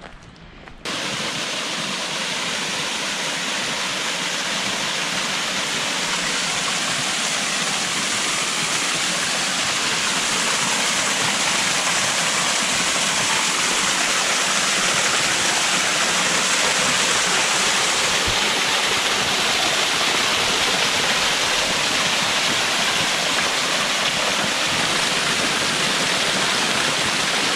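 Rushing water of a mountain creek: a loud, steady rush that starts abruptly about a second in and grows slightly louder.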